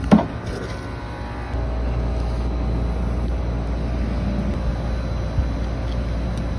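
Steady low rumble with a faint machine hum among rooftop HVAC units, growing louder about a second and a half in. A single sharp knock comes right at the start.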